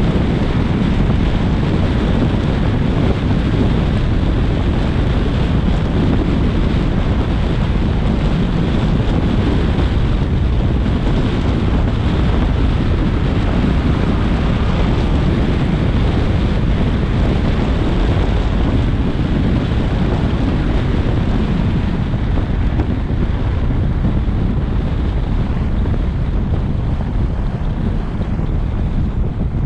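Steady roar of wind buffeting a GoPro's microphone, mixed with tyre and road noise from a car at expressway speed on rain-wet pavement. It eases a little over the last few seconds.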